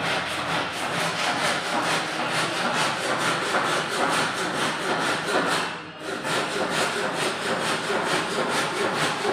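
Hand saw cutting through wood with quick, even back-and-forth strokes, pausing briefly about six seconds in before carrying on.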